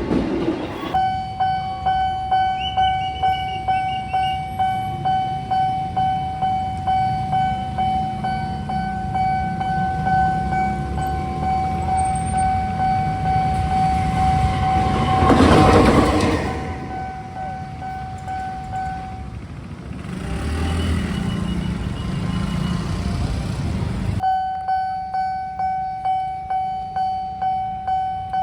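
Railway level-crossing warning alarm sounding a steady pulsing tone, about two pulses a second. A train passes with a loud rush of noise about halfway through. The alarm drops out for a few seconds and comes back near the end.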